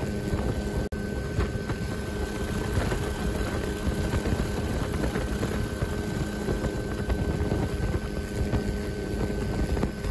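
Steady engine drone over a low rumble, with a brief dropout about a second in.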